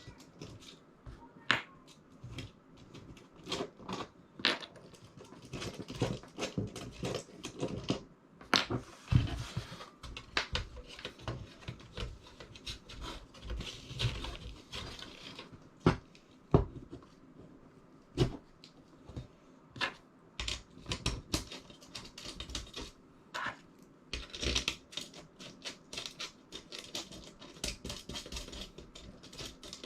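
Irregular clicks, knocks and rustling of parts being handled and fitted while a battery shuttle is assembled, with a few louder sharp knocks.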